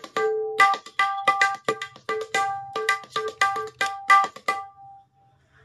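A high-pitched tabla dayan (chati), the wooden right-hand drum, played by hand in a quick run of about twenty ringing strokes. Most strokes ring at one bright pitch, mixed with a few lower ones. The strokes stop about four and a half seconds in, and the last ring fades out.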